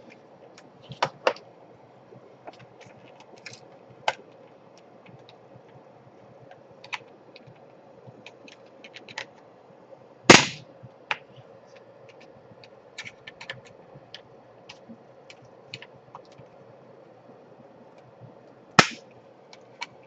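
Scattered small clicks and taps of hands and a tool working on an opened laptop's plastic chassis, with two louder knocks, one about ten seconds in and one near the end, over a faint steady hum.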